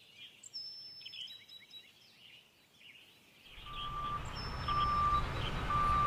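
Birds chirping faintly. About three and a half seconds in, a heavy vehicle's engine fades in and grows steadily louder, with a reversing alarm beeping about once a second.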